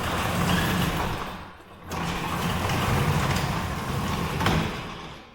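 Sectional garage door being raised, its rollers rumbling along the steel tracks, with a short lull about one and a half seconds in; the noise dies away at the end as the door reaches the top.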